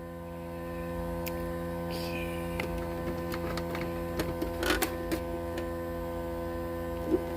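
Steady electrical mains hum with a few faint clicks and taps of handling partway through.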